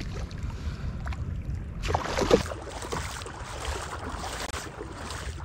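Hooked rohu thrashing and splashing at the surface of shallow water as it is played on the line, in irregular bursts, the loudest about two seconds in, over a steady low background rumble.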